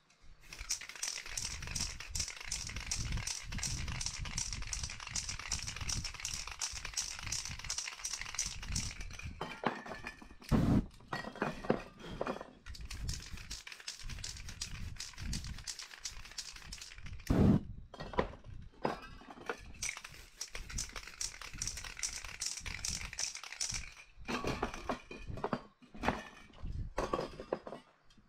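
Aerosol spray paint cans hissing in long bursts, broken by a few loud knocks, the loudest about ten seconds in and again about seventeen seconds in, with shorter sprays and knocks near the end.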